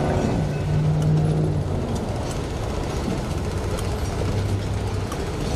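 Diesel locomotive engine running as a train rolls by. Its low tone falls in pitch at the start, then settles into a steady low rumble.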